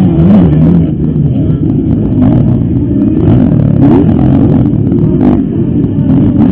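Several motocross bikes racing, their engines revving up and falling back again and again, with the pitches of different bikes overlapping. Loud throughout.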